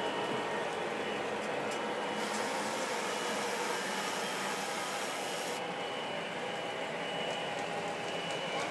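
Model trains running on the layout: a steady mechanical whir and rumble of wheels on track, with a higher hiss joining for a few seconds partway through.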